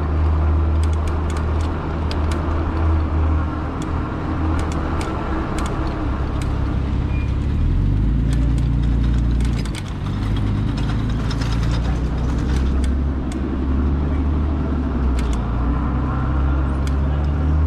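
Modded fat-tire e-bike riding along a road: a steady low rumble from the bike moving over the road, with many scattered sharp clicks and rattles. The rumble shifts lower about eight seconds in.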